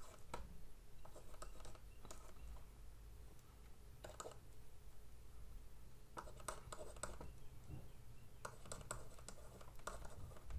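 Faint, scattered taps and scratches of a stylus writing on a pen tablet, coming in short clusters of light clicks.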